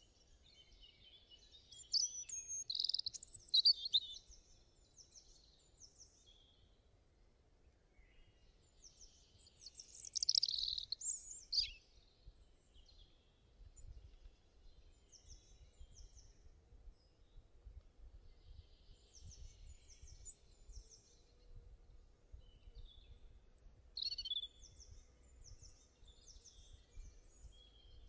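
Small birds chirping and twittering in short clusters of quick high notes, loudest about two to four seconds in and again around ten to twelve seconds in, over a faint low rumble.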